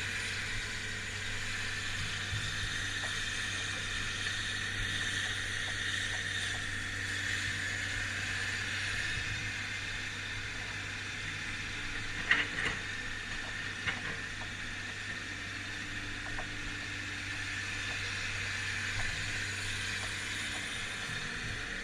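Diesel engine of heavy digging equipment running steadily, with a few sharp metal clanks about twelve to fourteen seconds in.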